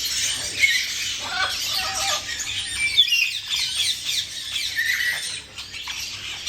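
Many caged birds chattering, with dense overlapping chirps and a few louder squawks.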